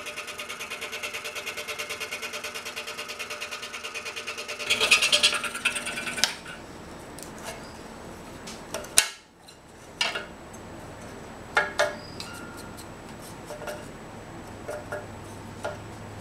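Scroll saw running as it cuts a polycarbonate sheet: a steady, fast pulsing that gets louder and then stops about six seconds in. After that come scattered clicks and light knocks as the cut-out plastic piece is handled.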